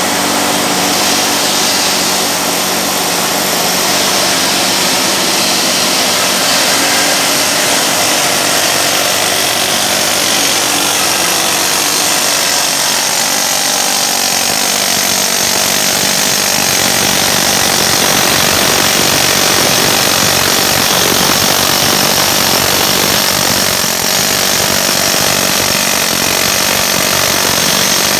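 A power tool running continuously and loudly, with a steady whine in the first half that gives way to a harsher, noisier sound.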